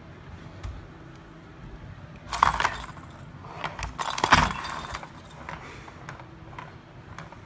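Ball clattering and rolling around the hollow plastic track of a Catit Senses Speed Circuit cat toy as a kitten bats at it. It comes in two bursts, a little over two seconds in and again around four seconds in, with a high jingling ring over the clicks.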